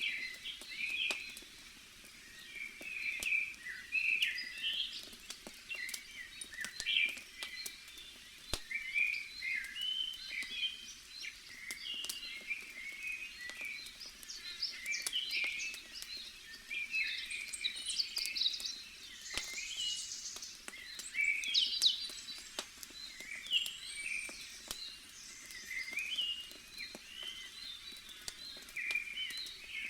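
Forest ambience of many small birds chirping and calling over one another, with scattered sharp crackles and pops from a burning wood campfire.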